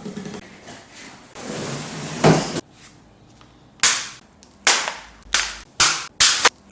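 Six sharp snaps in a row, coming faster toward the end: plastic zip ties being snipped off with cutters, as when a new bike is unpacked. Before them comes a noisy rustle ending in a single sharp knock.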